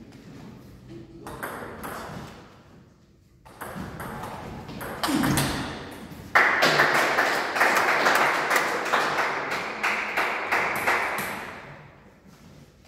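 Table tennis ball clicking off the rackets and bouncing on the table in a fast rally, the hits ringing in a large echoing hall. A few scattered clicks come first, then a dense run of hits that stops about a second before the end.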